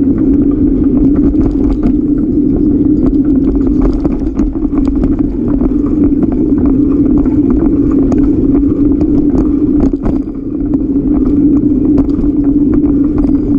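Riding noise from a bicycle-mounted camera rolling over concrete paths: a steady rumble of tyres and air, with frequent small rattles and clicks as the bike crosses cracks and bumps. The rumble eases briefly twice.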